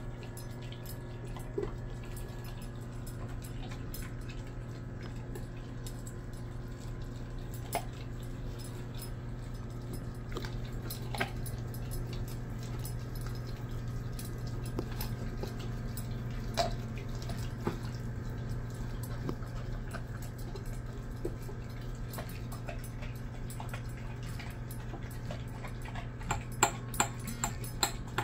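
Dog chewing a raw chicken drumstick out of a stainless steel bowl, with scattered sharp clicks and a quick run of loud clinks near the end. A steady low hum sits underneath.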